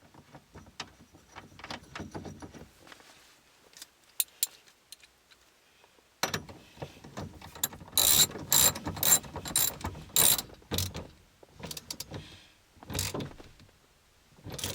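Ratchet wrench clicking as the steering-wheel hub bolts are worked: faint scattered clicks at first, then past the middle a run of louder ratcheting strokes about two a second, and a few more near the end.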